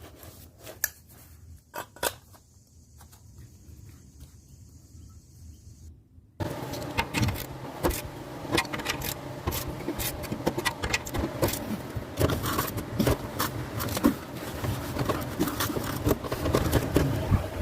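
Faint background with a few scattered clicks, then, after an abrupt jump in loudness about six seconds in, a busy run of irregular metallic clinks, rattles and scraping from tools and exhaust parts being handled while a glass pack muffler is fitted.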